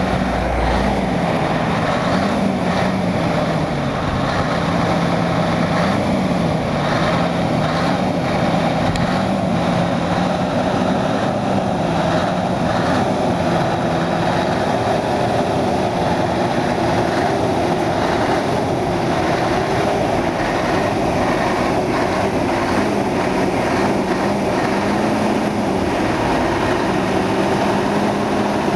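Scania R620 truck's V8 diesel engine running at low revs close by, a steady hum whose pitch wavers slightly.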